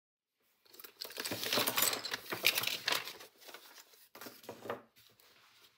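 Kraft paper envelope rustling and crinkling as it is handled and lifted away. The crinkling is loudest in the first three seconds, with a shorter burst about four seconds in.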